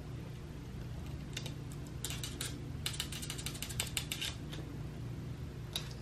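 A cat clawing and biting at a feather toy on a mat: irregular runs of quick, scratchy clicks, densest about two to four seconds in, over a steady low hum.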